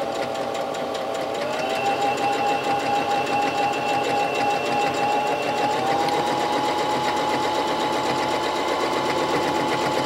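Singer Talent electric sewing machine running steadily, its needle stitching through quilt batting and fabric. The motor's whine steps up slightly in pitch twice, about a second and a half in and again about six seconds in, as it speeds up.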